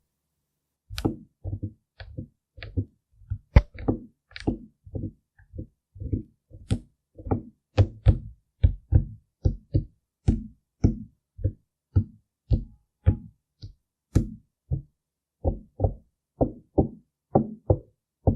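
Soft, dull taps of makeup being dabbed onto a mannequin head, repeated at a steady pace of nearly two a second, a few with a sharper click.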